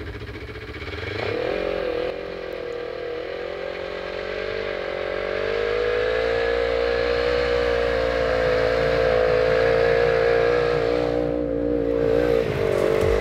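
Snowmobile engine revving up about a second in, then running at steady high revs and growing louder as it approaches.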